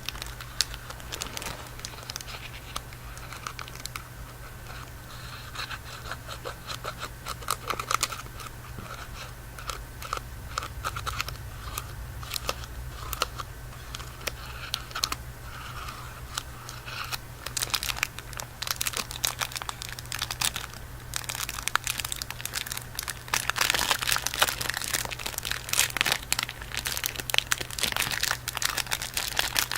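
Close-up crinkling and crackling of a chocolate bar's wrapper being handled, a run of small crackles that gets busier and louder past the middle.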